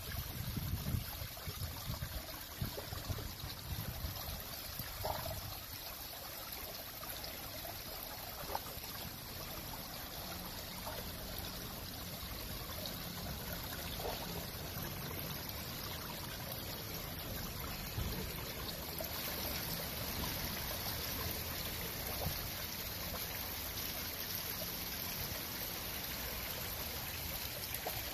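Water running and trickling steadily in a stone garden fountain, an even splashing hiss. A few low rumbles come in the first few seconds.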